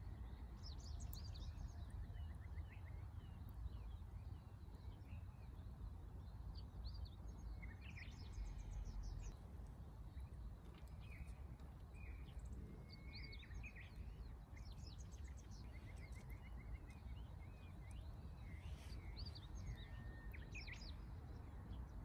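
Wild birds chirping and singing, with short calls and a few rapid trills, over a steady low rumble.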